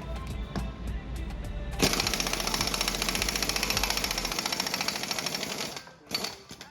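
Impact wrench hammering rapidly for about four seconds, then two short bursts near the end, breaking loose the nut that holds the piston on a hydraulic cylinder's rod. Background music runs underneath.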